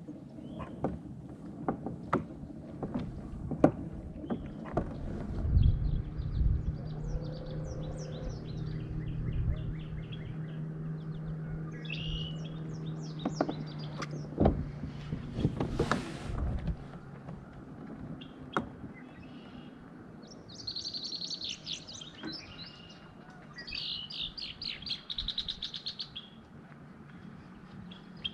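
Small birds singing, quick chirps and fast trills that grow strongest in the second half. Earlier, scattered sharp knocks and a steady low hum lasting about ten seconds.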